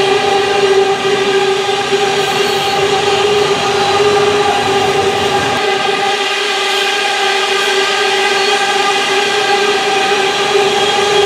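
Loaded iron-ore wagons rolling past with a rumble and a steady pitched squeal from the wheels that holds one note throughout. The low rumble thins out about halfway through.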